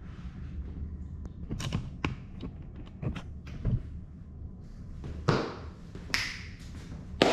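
Irregular knocks, taps and footsteps over a faint steady low hum, with the sharpest knocks in the second half and the loudest just before the end.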